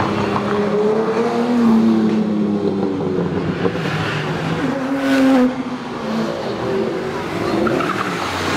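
Lamborghini Diablo VT 6.0's V12 with a Quicksilver aftermarket exhaust, accelerating hard away from a standing start. Its pitch climbs and drops back several times as it goes up through the gears. For the last couple of seconds a quieter engine from another car takes over.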